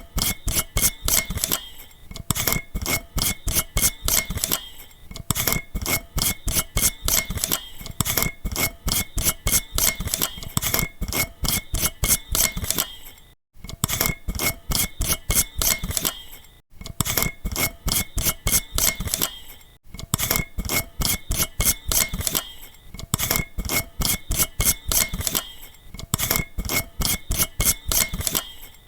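An old-style incandescent light bulb twisted in its socket: a fast run of clicks as the metal screw base rides the socket threads, with a faint glassy ring behind them. It comes in repeated twists with short pauses, broken off completely three times.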